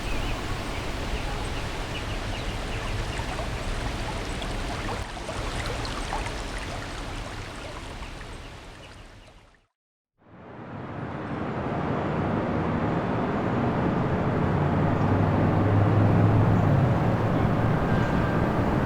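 Recorded ambience sound effects: a forest bed with faint bird chirps over a steady rush fades out about ten seconds in. A city street bed then fades in, and traffic rumble builds as vehicles pass.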